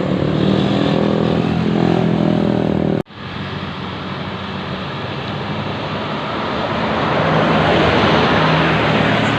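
Bus engine and road noise as buses go by. It cuts off abruptly about three seconds in, then starts again and grows louder toward the end.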